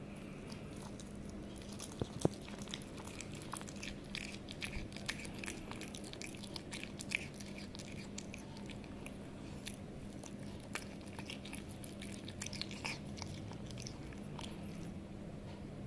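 A cat chewing and biting raw chicken breast: irregular wet clicks and smacks from its mouth, several a second, with a steady low hum underneath.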